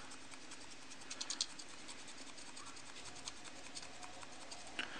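Faint scratching of a small paint brush's bristles rubbing over the edges of a plastic model kit's knee joint while silver paint is dry-brushed on, with a few light ticks about a second in.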